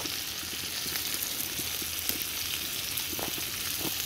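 Pork belly and kimchi frying in pork fat on a hot grill pan, a steady sizzle with scattered small crackles. The heat is turned up too high and the meat is starting to burn.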